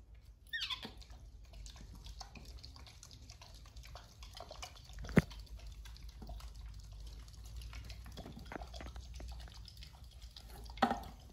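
A baby monkey gives a high squeal that slides down in pitch near the start and another short cry near the end, with faint scratching and ticking in between. About five seconds in there is one sharp knock, the loudest sound.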